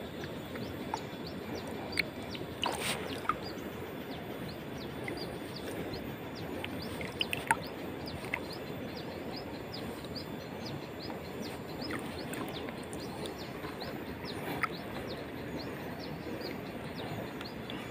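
Birds chirping over the steady rush of a shallow stony river. A few louder, sharper chirps come about two to three seconds in and again around seven and a half seconds.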